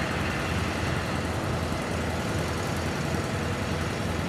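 Kubota DC70 combine harvester running steadily under load while cutting and threshing rice.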